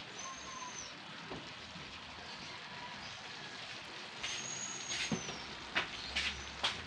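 Chicken pieces sizzling in sauce in a metal wok, a steady hiss. A high thin whine comes near the start and again about four seconds in, and several sharp clicks come in the last two seconds.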